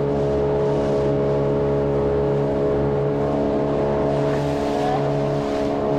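Dinghy outboard motor running at a steady speed, holding one even pitch.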